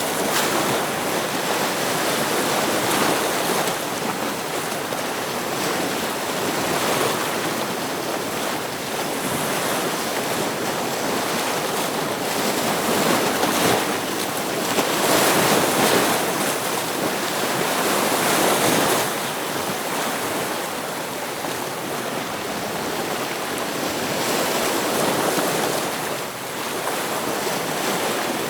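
Ocean waves breaking against rocks, a steady rush of surf that swells and ebbs every few seconds, loudest a little past the middle.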